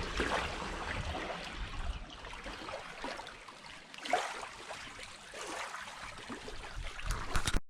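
Shallow river water trickling and lapping, with small irregular splashes.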